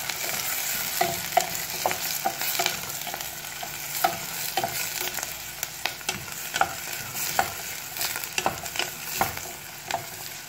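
Chopped onion sizzling in hot olive oil in a stainless steel pot, being sautéed until brown. A wooden spoon stirs it, scraping and knocking against the pot in frequent short clicks.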